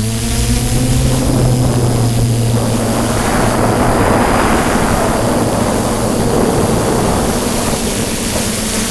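DJI F550 hexacopter's six motors and propellers humming steadily, heard through the GoPro mounted on the craft. From about a second and a half in, a rushing noise swells over the hum and fades again near the end.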